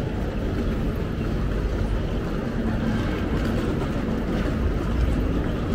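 Steady low rumble of railway noise, with faint higher tones now and then.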